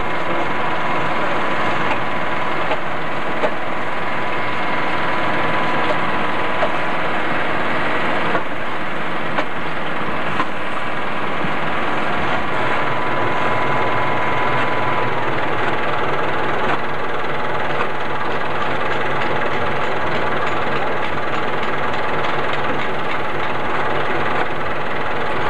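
Diesel engine of heavy construction machinery running steadily at idle.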